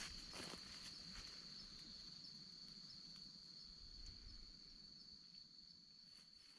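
Faint, steady high trill of night insects singing, with a fainter chirp repeating above it about once a second. A few soft rustles of leaf litter near the start.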